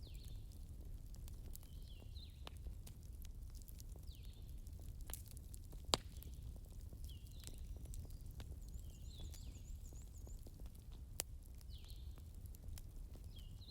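Wood fire crackling with scattered pops, one sharper pop about six seconds in, over a low steady rumble. Short high chirping calls of a small animal repeat every couple of seconds, with a quick trill of very high notes around the middle.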